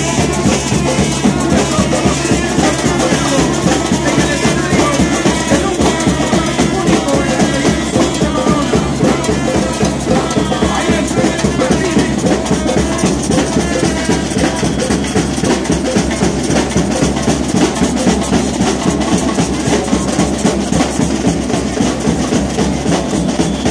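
Loud carnival music with a steady beat of drums and shakers.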